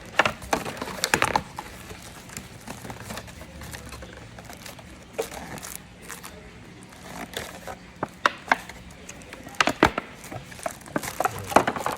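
Packaging being handled as the dash cam is unwrapped: intermittent crinkling and crackling in short clusters, busiest near the start and near the end.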